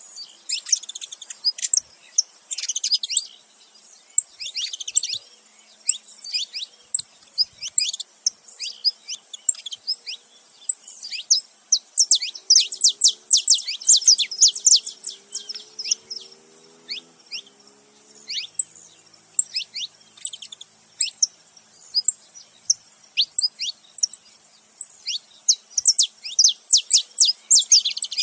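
A pair of saffron finches, male and female, chirping together in rapid runs of short, sharp, high notes, each note dropping quickly in pitch, coming in clustered bursts with brief gaps.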